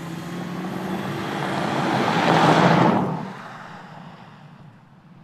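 Porsche Cayenne S with its 3.6-litre twin-turbo V6 driving past on a dirt track: the engine and the tyres on the loose surface grow louder to a peak about three seconds in, then drop away quickly as it goes by.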